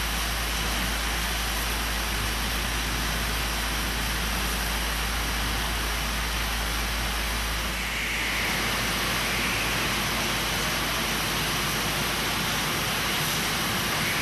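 Oxy-fuel cutting torch burning through a thick steel slab: a steady, even hiss that shifts a little in tone about eight seconds in.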